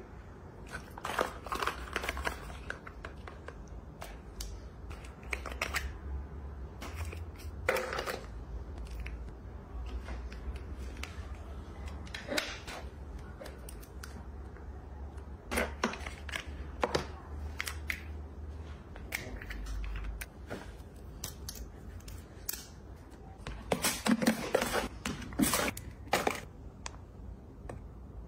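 Ceramic bowls and plates clinking and knocking against each other and a wire dish rack as they are handled, in scattered clusters of sharp clicks. A low steady hum sits under the first two-thirds and stops about twenty seconds in.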